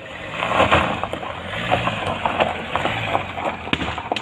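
A car fully engulfed in flames: the fire rushing with steady crackling and popping, a sharper pop about three and a half seconds in, and a low rumble underneath.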